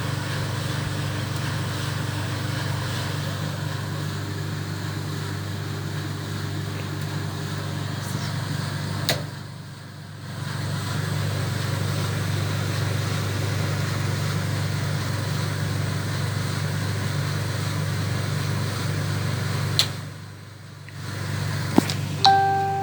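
A 1970s Creda Compact 3 tumble dryer running with a steady low hum from its drum motor and fan. Twice a click is followed by the hum dropping away for about a second and a half before it returns. A short steady tone sounds near the end.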